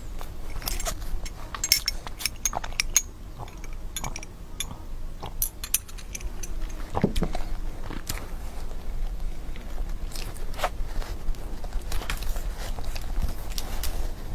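Close-miked eating sounds of someone biting into and chewing chocolate desserts: irregular sharp crunches and clicks, bunched about a second in, around seven seconds in, and again near the end.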